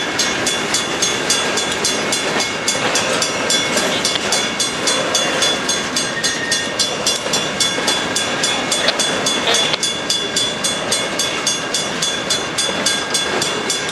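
Freight boxcars rolling past a road grade crossing, wheels running on the rails, with the crossing bell ringing steadily at about five strokes a second.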